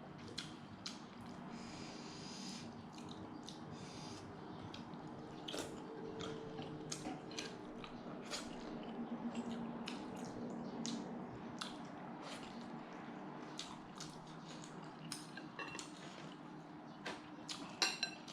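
A person eating roast chicken close to the microphone: chewing, with many short wet mouth smacks and small clicks at irregular moments.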